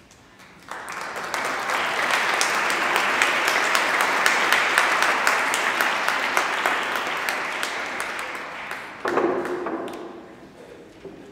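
Audience applauding, building up under a second in and dying away after about nine seconds. A brief pitched sound cuts in about nine seconds in.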